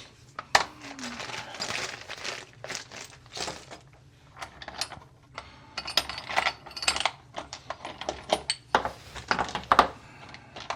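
Loose metal screws and hardware clinking and rattling in irregular bursts as a hand rummages through them.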